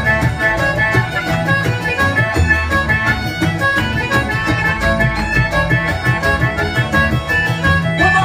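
Irish folk band playing a traditional tune live, a fiddle melody over acoustic guitar accompaniment.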